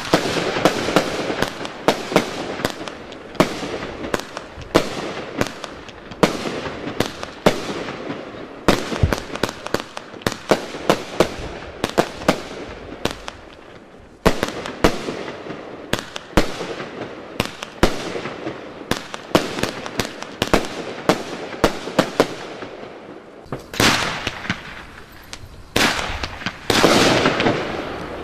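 Zena Mayhem 1579 fireworks cakebox firing a long sequence of shots, a sharp bang every fraction of a second as each shell launches and bursts. The last few seconds fill in with a denser rush of noise between the bangs.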